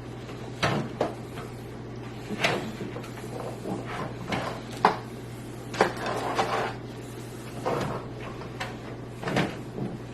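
Irregular knocks, clicks and short rattles of hands handling PC parts, screws and tools against a metal computer case, with a steady low hum underneath.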